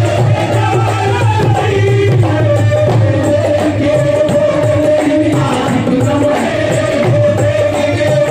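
Qawwali: voices singing a Sufi devotional song over a steady rhythmic beat, with a long held note running underneath from about two seconds in.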